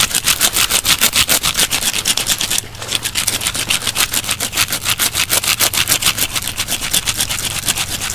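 Teeth of a deer jawbone sawing back and forth against a live pine trunk, a rapid rasping of several strokes a second, with a short pause about two and a half seconds in.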